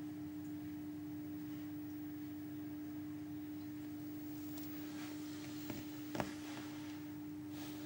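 A steady hum at one unchanging low pitch, over a light hiss. Two short clicks about half a second apart come about six seconds in.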